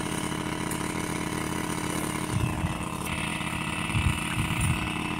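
An engine running at an even, steady speed, a constant hum with no change in pitch.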